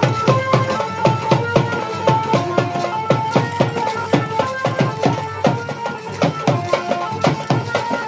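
Indian folk dance music: a fast, steady drum beat on hand drums with a melody of short held notes over it.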